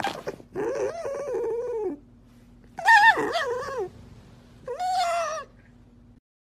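Tame red fox being tickled, giving three wavering, whiny calls; the middle one is the loudest and the last slides down in pitch.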